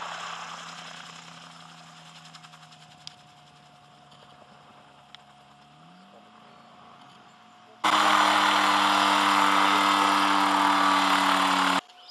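Sportcopter Lightning gyrocopter's engine running at a distance, fading, then rising in pitch about six seconds in. About eight seconds in, a much louder steady mechanical drone with a hum starts abruptly and cuts off suddenly about four seconds later.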